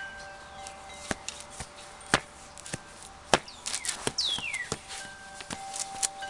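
Leather dress shoe soles tapping on a concrete floor: a few sharp taps, two of them louder, about two and three and a half seconds in. Wind chimes ring steadily behind them, and birds give quick whistles that fall in pitch.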